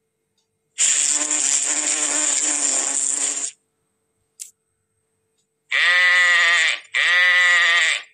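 A wasp buzzing for about three seconds, then a short click, then a sheep bleating twice in two long wavering calls.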